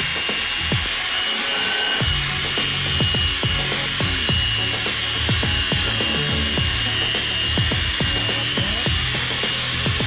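Continuous abrasive rubbing of a plastic headlight lens being sanded with 1500-grit paper, the fine-sanding stage of restoring a cloudy headlight.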